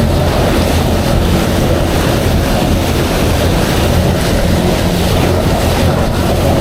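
A motorboat's engine running steadily at sea, a low even hum under wind buffeting the microphone and the wash of water.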